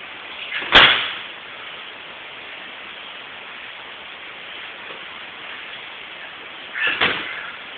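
Two loud slaps of judoka being thrown and landing on the tatami mats, about six seconds apart. The second landing comes as a quick double impact.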